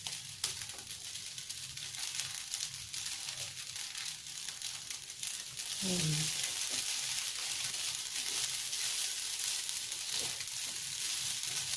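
Rice vermicelli stir-frying in a wok: a steady sizzle with a spatula scraping and stirring through the noodles. The sizzle gets louder about halfway through.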